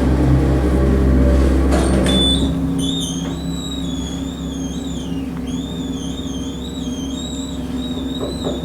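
Hydraulic elevator's dry-type pump motor humming loudly, dropping off sharply about two seconds in; then a high, wavering squeal from the elevator keeps going, rising and falling in pitch.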